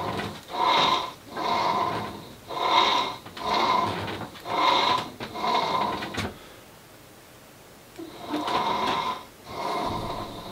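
Longbow on a tiller tree being drawn and let down again and again by a rope through a pulley, the rig squeaking on each pull and release. The squeaks come in pairs about every two seconds, with a pause of about two seconds past the middle.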